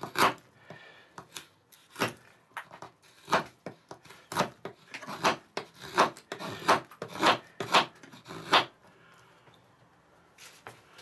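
M390 steel knife blade with a fine CBN-sharpened edge shaving wood from a wooden block: a quick series of sharp scraping strokes, about two a second, that stops about two-thirds of the way through. The edge cuts the wood cleanly.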